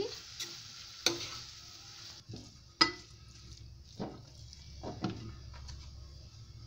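A steel spoon stirring and scraping dry-fried prawns around a non-stick kadhai, with a few sharp clinks of the spoon against the pan, the loudest about three seconds in. The still-hot pan gives a faint sizzle just after the gas is turned off.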